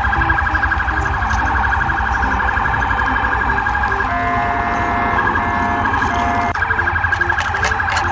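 Police car siren in a fast warble. Partway through it switches for a couple of seconds to a pattern with a repeating steady tone, then returns to the warble and cuts off suddenly near the end.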